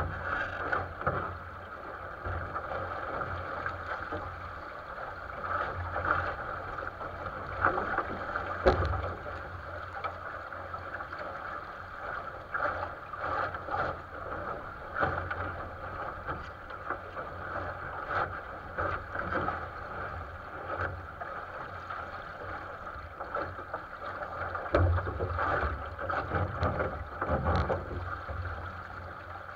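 Water rushing and splashing along the hull of a 470 sailing dinghy under way, with irregular slaps of chop against the bow and low gusts of wind on the microphone.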